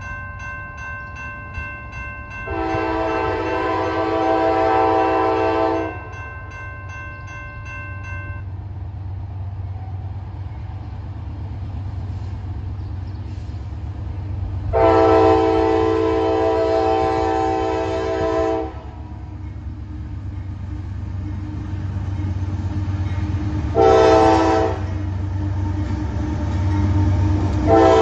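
Diesel freight locomotive horn sounding the grade-crossing signal as the train approaches: two long blasts, a short one, then a final long blast starting just before the locomotive reaches the crossing, over a low engine rumble that grows louder near the end. A crossing bell rings through the first several seconds and stops about eight seconds in.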